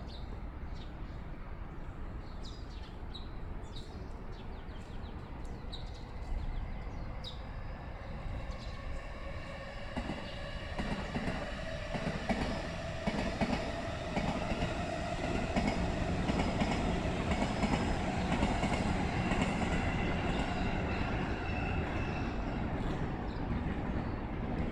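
Electric train running past, growing louder from about ten seconds in, with a rising motor whine over the rumble of the wheels on the rails.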